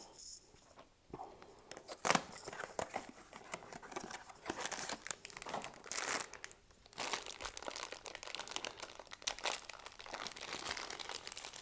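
Cardboard Funko Mystery Minis blind box being torn open and the packaging inside crinkled by hand: a run of irregular crackling and rustling, with a sharper tear about two seconds in.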